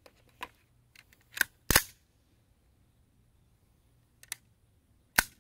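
Colt AR-15 Sporter II fitted with a .22 LR subcaliber bolt, firing subsonic rounds that are very quiet: each shot is mostly the metallic clack of the action. There are sharp clicks and clacks throughout, with the two loudest about a second and a half in and just before the end.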